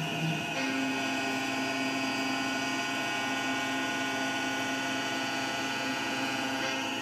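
A Langmuir MR-1 gantry CNC mill's spindle turns a 3/8-inch two-flute carbide end mill at 8000 RPM, taking a light 0.005-inch finishing face pass across aluminium under flood coolant. It makes a steady whine of several pitches over a hiss, and the tone shifts slightly about half a second in and again near the end.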